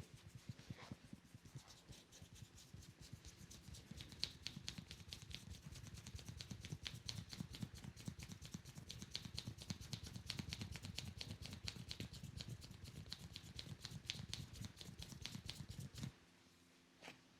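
Fast patter of hand strikes from a percussive head massage, the barber's hands tapping rapidly on the head. It cuts off suddenly about sixteen seconds in.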